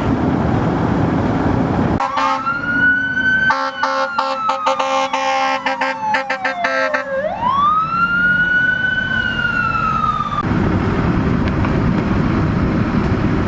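Emergency vehicle siren wailing: it rises, slides slowly down, sweeps back up and then cuts off abruptly about ten seconds in. A steady rushing noise comes before and after it.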